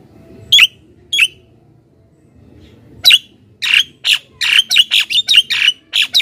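Javan myna calling: two short, sharp calls, then about three seconds in a quick run of harsh, rasping calls, several a second.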